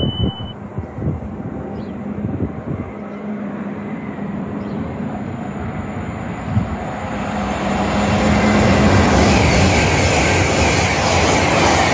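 A train approaching and passing through the station: its running noise builds from about seven seconds in and stays loud to the end, over a steady low hum and some wind on the microphone early on.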